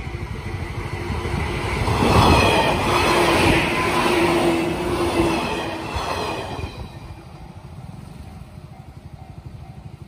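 JR Nara Line electric train passing a level crossing: wheels and motors rise to their loudest about two to four seconds in, with a whine, then fade by about seven seconds. Throughout, the level crossing's warning bell rings in a fast steady rhythm, and it keeps ringing after the train has gone.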